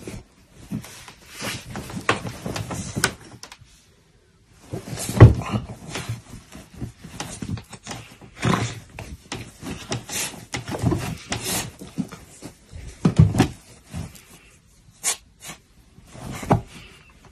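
Jack Russell terrier digging and burrowing into a blanket in a fabric dog bed: irregular scratching and rustling of cloth with soft thumps, the loudest about five seconds in, after a brief pause.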